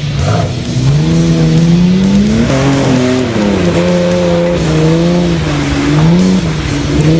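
Car engine revving hard, its pitch climbing over the first couple of seconds, dropping, then holding high with small rises and falls.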